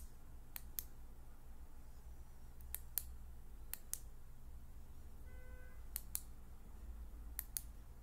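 Flashlight switch clicked over and over, a pressed-and-released double click about five times.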